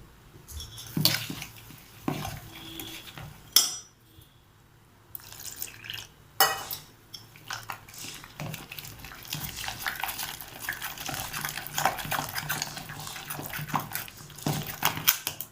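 Wheat flour and water being mixed into a batter in a bowl: a utensil clinks and scrapes against the bowl, a few strokes at first, then steady, quick mixing through the second half.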